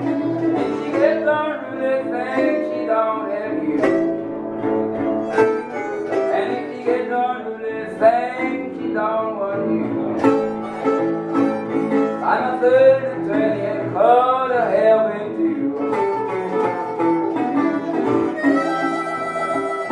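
Live acoustic Delta blues: a harmonica cupped to a microphone plays bent, wailing notes over a metal-bodied resonator guitar, and a long held harmonica note comes in near the end.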